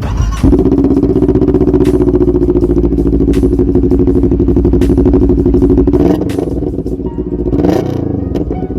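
CFMoto NK400/GT400 parallel-twin engine through an aftermarket muffler, revved up about half a second in and held steady at high revs, then dropping back about six seconds in and blipped once more near the end.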